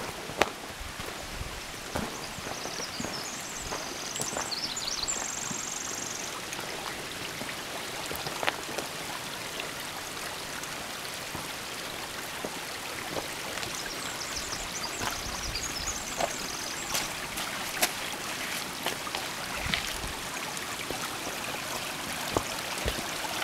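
Steady rush of a mountain creek running over rocks, with footsteps crunching on a gravel trail and occasional clicks of boots on stone.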